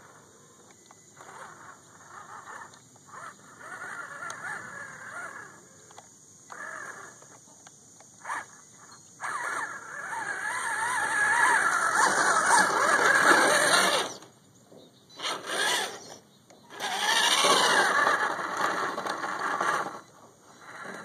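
Axial SCX10 RC crawler's electric motor and gear drivetrain whining under throttle in bursts, its pitch rising and falling. It is loudest in a long stretch midway and again near the end, with short cut-outs between. The truck has a slipping rear axle.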